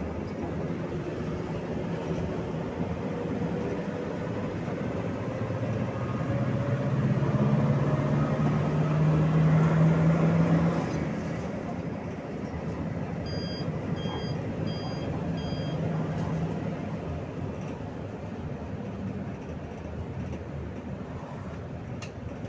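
PAZ 32054 bus's gas-converted V8 engine heard from inside the cabin, pulling under load with its pitch rising steadily for about ten seconds as the bus gathers speed, then easing off and quieting. A few seconds later come four short electronic beeps.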